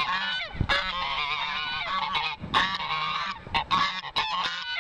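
A flock of geese honking all at once, many overlapping harsh calls in a steady din.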